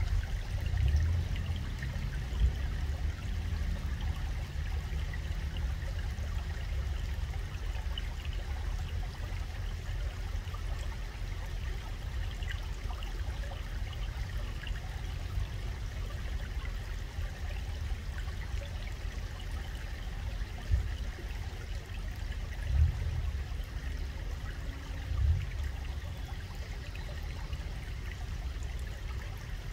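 Shallow stream water running, heard mostly as a steady low rumble with faint crackling, and a few short dull thumps, two of them in the last third.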